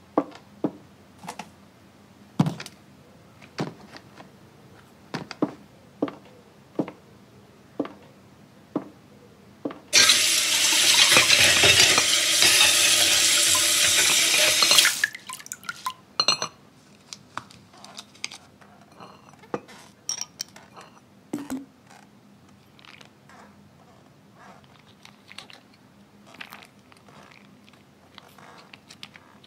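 Footsteps on a wooden hallway floor, about one and a half steps a second. About ten seconds in, a kitchen tap runs full into a stainless steel sink for about five seconds as plates are rinsed. Scattered clinks of plates and small handling sounds follow.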